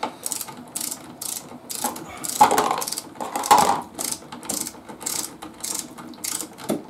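Hand ratchet wrench clicking in repeated back-and-forth strokes, about three clicks a second, as a brake caliper bolt is run in.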